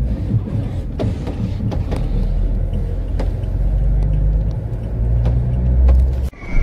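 Low, steady rumble of a car driving slowly along a road, heard from inside the vehicle, with scattered sharp clicks and knocks. The sound cuts out briefly near the end.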